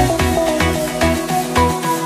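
Electronic dance music with a steady bass beat, about three beats a second, under a repeating melodic line.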